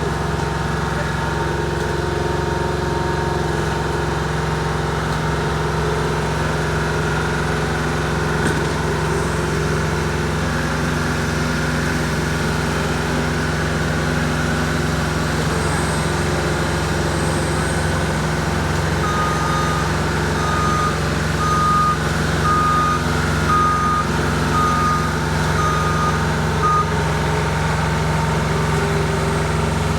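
Diesel engine of heavy asphalt-paving equipment running steadily. In the second half, a backup alarm beeps about once a second for roughly eight seconds as a machine reverses.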